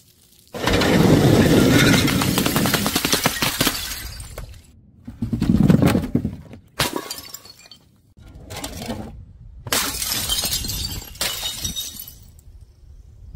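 A run of about six breaking, smashing crashes as objects dropped from a height burst on impact. The first and longest lasts about four seconds, and shorter crashes follow with brief silent gaps between them.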